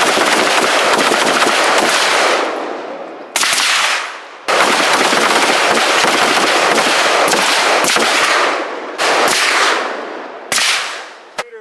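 Gunfire from several shooters firing at once on a range firing line: rapid, overlapping shots in long strings with a few short pauses, ending with a single shot.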